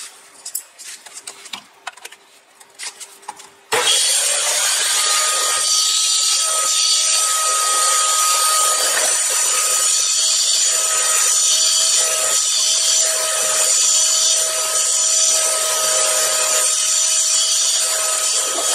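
A few light handling clicks, then a vacuum cleaner switched on about four seconds in, running with a steady whine over a loud rush of air as it cleans the car's footwell carpet.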